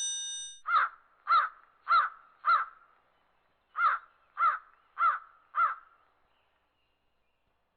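Two runs of four short, harsh caw-like animal calls, each rising then falling in pitch, a little under two a second, with a pause of about a second between the runs. A ringing chime fades out at the very start.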